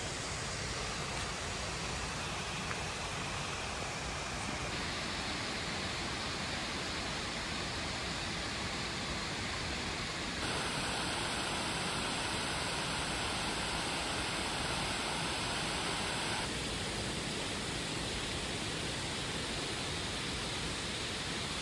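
Waterfall: a steady, even rush of falling water. Its tone shifts abruptly about five, ten and sixteen seconds in.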